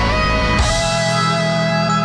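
Background rock music led by guitar. The heavy low end drops away about half a second in, leaving held guitar notes.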